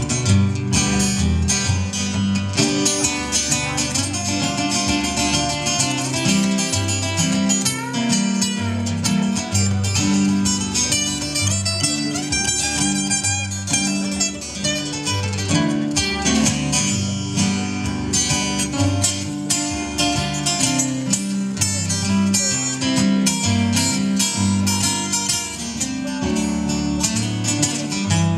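Live acoustic band playing an instrumental break between sung verses: acoustic guitars strumming and picking a lead, with keyboard, through a stage PA.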